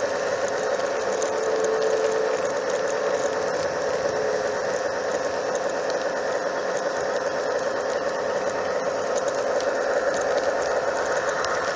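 Steady whirring rattle of a garden-scale model freight train running slowly, heard up close from on board: the locomotive's geared motor and the wheels rolling on the rails.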